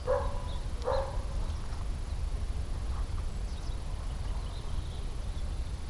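A dog barking twice in quick succession, about a second apart, over a steady low rumble.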